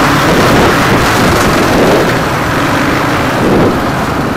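Enduro dirt bike engines running under way on a rough dirt track, heard close from the rider's own bike, the revs rising and falling.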